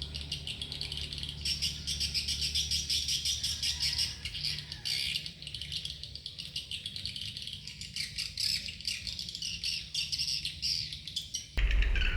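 Sogok ontong birds chirping and twittering, fast and continuous, in dense high calls. Just before the end it cuts abruptly to a louder low rumble.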